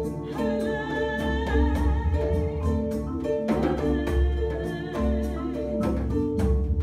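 Improvised world music played live on marimba, djembe and kora, with a woman's voice singing long, wavering held notes twice over the steady drum and marimba rhythm.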